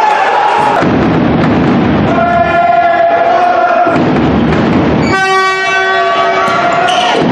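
Horns blown by fans in long steady blasts over crowd noise: one fading out about a second in, another from about two to four seconds, and a fuller, richer one from about five to seven seconds.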